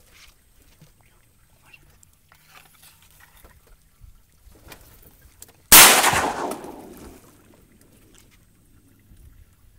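A single shotgun shot about six seconds in, sudden and by far the loudest sound, ringing off over the next second and a half. Before it only faint small knocks.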